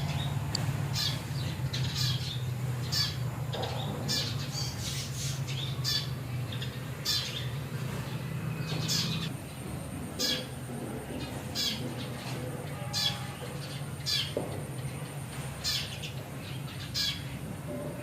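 Short, high-pitched animal squeaks repeating about once a second, over a steady low hum that stops about nine seconds in.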